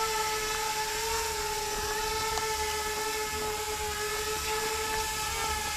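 Electric two-rotor RC bi-copter drone hovering low, its two motors and propellers whining at a steady pitch.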